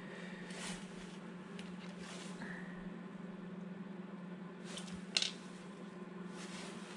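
Faint clicks and rustles of hands handling copper cable lugs and electrical cable, with one sharper click about five seconds in, over a steady low hum.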